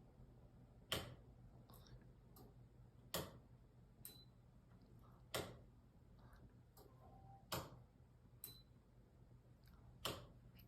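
DC ceiling fan running at low speed, with a sharp tick about every two seconds and fainter clicks between, over a faint low hum.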